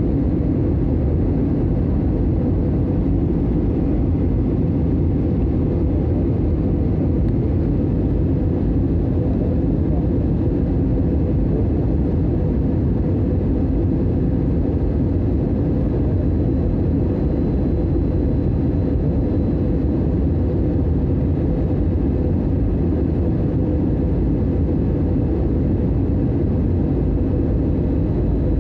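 Steady cabin noise of a jet airliner on its landing approach, heard at a window seat by the engine: a deep, even rumble of the engines and rushing air that does not change.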